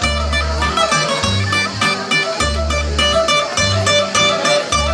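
Bouzouki played with a pick: a fast plucked melody over deep, held bass notes.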